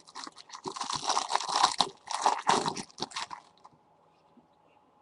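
Crinkling and crunching of a trading-card pack wrapper being handled: a dense run of crackly rustles that stops about three and a half seconds in.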